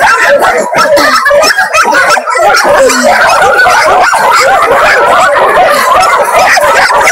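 Many shelter dogs barking and yelping at once in a dense, continuous chorus, the sound of dogs excitedly greeting a visitor.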